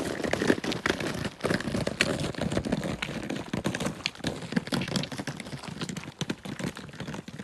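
Footsteps crunching and clattering on loose rock, a dense run of irregular clicks and scrapes as people walk a rough rocky path.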